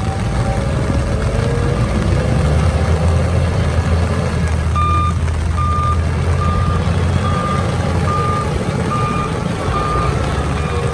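Heavy diesel earthmoving vehicle running with a steady low rumble; about five seconds in its reversing alarm starts, even high-pitched beeps a little faster than one a second, signalling the machine is backing up.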